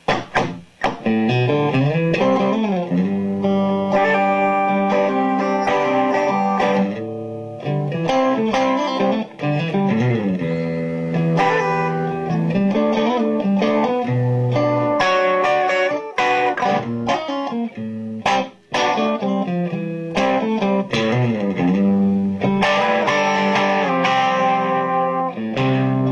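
Electric guitar played through a Victoria VIC105 'Ammo' EL84 valve amp, running a string of bluesy lead licks with bent notes and a few short pauses.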